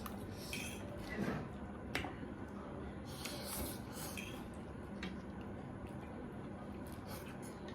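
Close-miked eating sounds: soft wet chewing of noodles and greens, with scattered light clicks of utensils or dishes.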